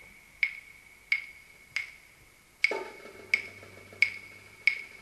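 Wooden percussion struck seven times on a steady beat, about one strike every two-thirds of a second, each a sharp click with a short high ring, like claves beating time at the start of a cha-cha track. A faint low sustained note comes in about two and a half seconds in.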